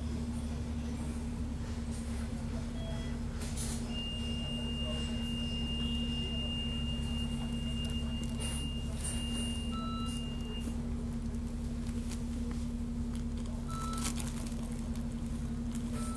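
Steady running drone of a vehicle moving slowly in city traffic, with a constant low hum. A long, steady, high electronic beep sounds for about six seconds from around four seconds in, and a few short beeps follow later.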